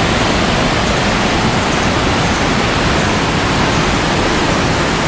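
Waterfall in heavy flow: a steady, dense rush of falling water with a deep low rumble.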